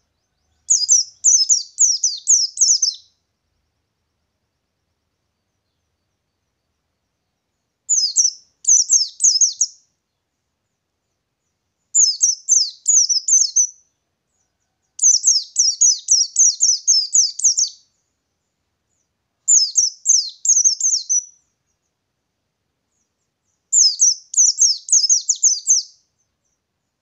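Wild-type white-eye (pleci ngalas, buxtoni) singing its rolling song: six high, quick bursts of rapid chattering notes, each two to three seconds long, with short silences between.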